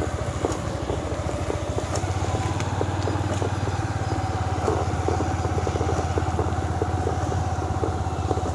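Motorcycle engine running at a steady, even speed while being ridden, heard close up from the bike.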